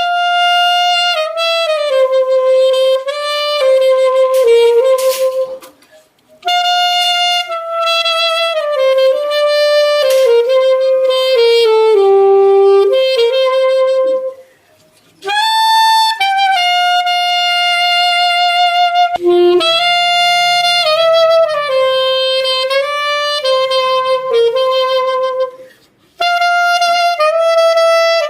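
Saxophone playing a slow melodic phrase, then the same phrase again on a second saxophone about two-thirds of the way through, a side-by-side sound test: first a Selmer Paris saxophone, then a budget black-and-gold saxophone. A faint low hum sits under the second take.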